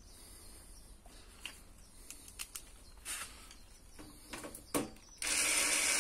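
A few short clicks and knocks as the screwdriver and screw are set against the appliance's metal side, then about five seconds in a small electric screwdriver starts running, driving a Torx screw.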